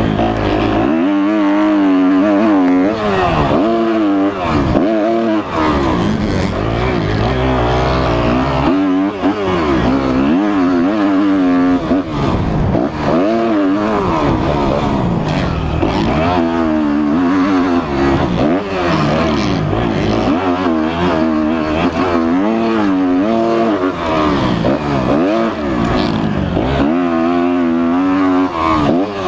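2013 Kawasaki KX250F four-stroke single-cylinder motocross engine, heard close up from on the bike, revving up and dropping back again and again as the throttle is opened and closed.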